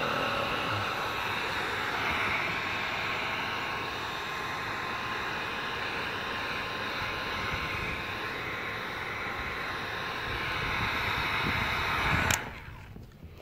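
Handheld Wagner electric heat gun running steadily, its fan blower whirring with a steady whine while heat-shrinking window tint film. It cuts off abruptly near the end.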